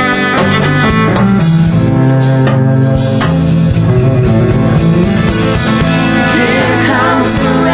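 Instrumental passage of a slow pop ballad, with guitar and steady sustained notes and no singing.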